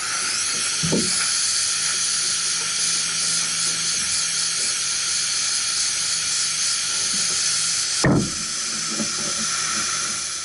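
Steady hiss of a brazing torch flame heating copper fittings to unbraze an old condenser coil, easing off near the end. Two low thumps, about a second in and again near the end.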